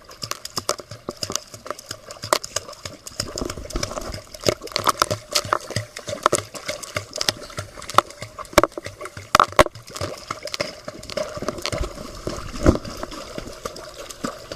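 Water splashing and sloshing in quick, irregular splashes, as from someone moving about in the water.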